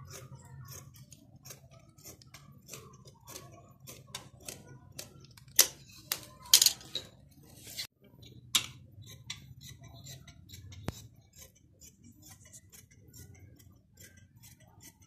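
Large tailoring scissors cutting printed cloth: a run of short crisp snips, with a few louder snips near the middle.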